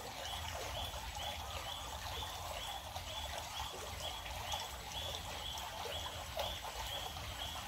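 River water trickling and flowing, with a bird repeating a short, high call note about twice a second throughout.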